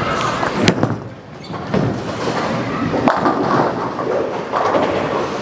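Bowling ball thrown down a wooden lane: a thud as it meets the lane, a stretch of rolling, then a sharp crash into the pins about three seconds in and pins clattering for a strike.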